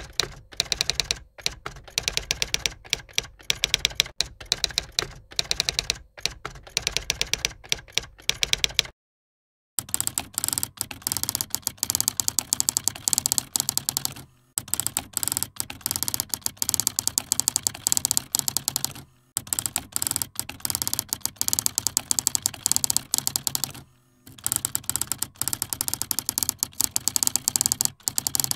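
Typing sound effect: a fast, continuous run of key clicks, with a short pause about nine seconds in and brief breaks every few seconds after that.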